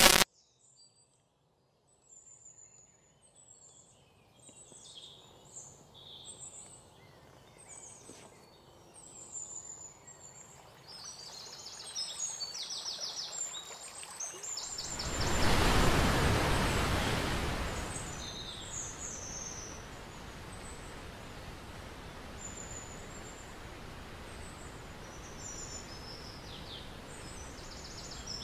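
Forest ambience of many birds chirping in short, high calls. About halfway through, a rushing noise swells for roughly three seconds and fades into a steady background hiss. The very start catches the end of a brief loud hit.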